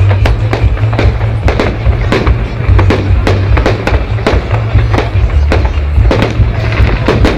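Fireworks display: a rapid string of bangs and bursts, about three or four a second, over loud music with a heavy bass.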